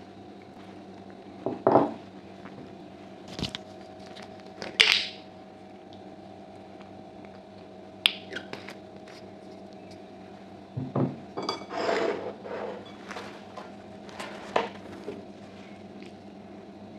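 Scattered clinks, clicks and handling noises over a plate of stewed sheep's trotters with chickpeas. A sauce bottle's cap clicks open about eight seconds in, and fingers pull at the soft trotters. A steady faint hum runs underneath.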